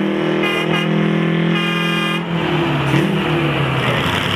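Heavy truck-based pulling tractor's diesel engine running hard on the pull, with an air horn giving two short toots and then a longer blast. About two seconds in, the steady engine note breaks up and falls away.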